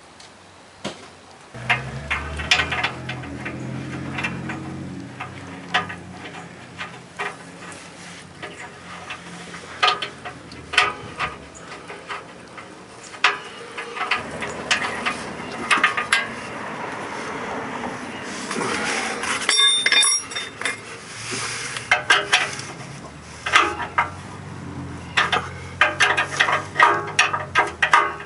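Metal hand tools clinking and clanking in irregular knocks and taps, over a low steady hum.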